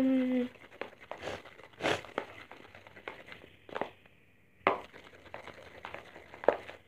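A utensil stirring a thick glue-and-baking-soda slime mixture in a bowl: irregular scrapes and clicks against the bowl, with a short falling hum at the very start.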